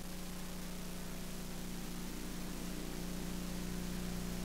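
Steady hiss with a low, even hum and no other events: the background noise of the audio channel, with no speech.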